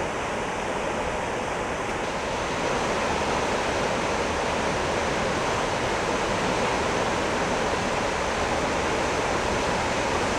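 Floodwater rushing steadily down a swollen creek, growing a little louder about two seconds in.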